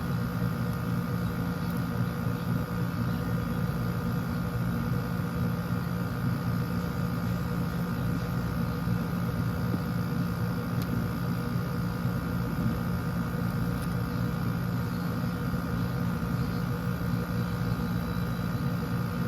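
A steady machine hum with a few fixed tones, even and unchanging throughout.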